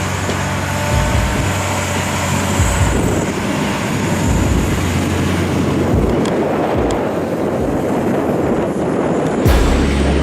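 Heavy diesel machinery running: a steady engine hum that turns into a rougher, noisier rumble about three seconds in, with an abrupt change near the end.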